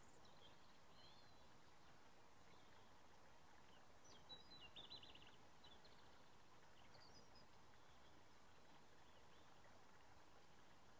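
Near silence: faint steady outdoor background noise with small birds chirping, loudest in a short rapid trill about four seconds in.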